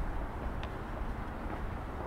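Steady outdoor ambience with a low rumble and a faint click about half a second in.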